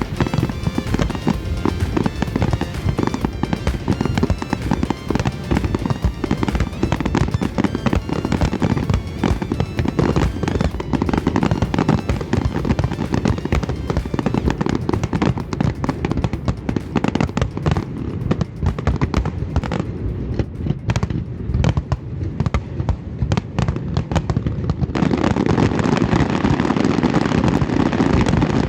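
Fireworks display: a dense, continuous run of aerial shell bangs and crackles, with music playing underneath. Near the end the barrage grows fuller and slightly louder.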